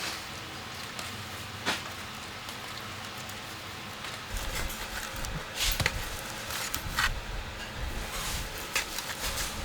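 Food sizzling in a pan, with a few sharp clinks and knocks of a cooking utensil against the pan, more often in the second half.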